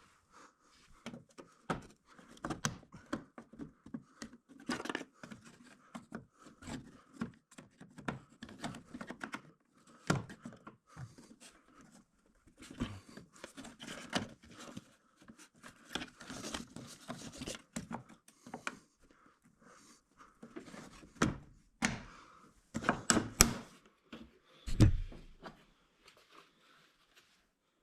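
Plastic side scoop being pried off a 1999 Ford Mustang with a trim tool: scattered clicks, scrapes and knocks as the retaining clips give, with a run of louder sharp snaps near the end and one heavy thud.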